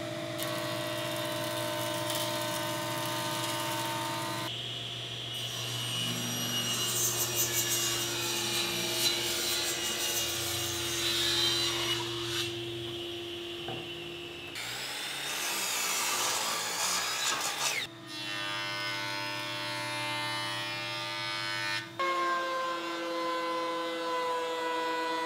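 Stationary woodworking machines in a row of short clips: a jointer running and surfacing a board, then a table saw ripping a board, then a thickness planer running. Each machine gives a steady motor tone under the noise of cutting, and the sound changes suddenly at each cut between clips.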